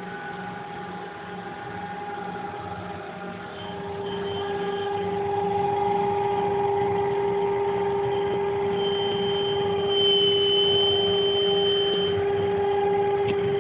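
CNC router spindle whining steadily as its cutter mills a groove into a flip-flop sole, getting louder about four seconds in. A higher whine comes in for a few seconds near the end.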